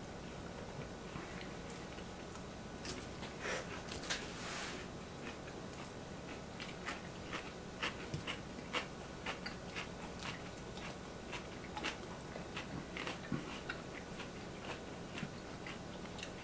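Tableware clatter at a meal: irregular light clicks and taps of a fork against wooden plates, with a stainless steel bowl set down on a wooden table.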